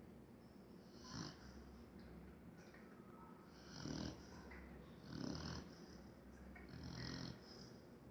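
Dog snoring in its sleep, quiet, with a breathy snore every second or two.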